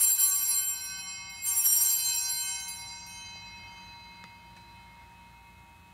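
Altar bells rung at the elevation of the consecrated host. One ring comes right at the start and another about a second and a half in, each a bright chord of several high tones that dies away slowly over a few seconds.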